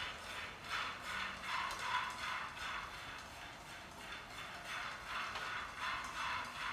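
A spatula scraping and stirring food in a frying pan, in quick even strokes about two to three a second, easing off for a moment midway.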